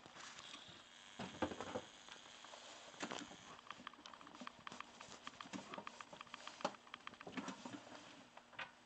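Light clicks, taps and rattles of hand tools and parts being handled in a snowmobile engine bay, with a busier cluster about a second in and another near three seconds, then scattered clicks.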